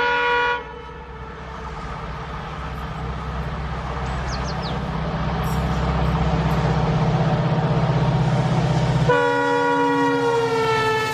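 Diesel locomotive horn ending about half a second in. Then a diesel locomotive's engine runs with a steady pulsing rumble that grows louder as the train approaches. Near the end the horn sounds again for about two seconds, its pitch dropping as the locomotive passes close by.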